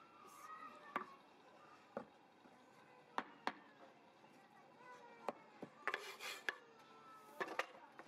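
Packed molding sand being broken apart by hand from a freshly poured aluminum casting and its steel mold box, with scattered sharp knocks and a quick run of taps about six seconds in.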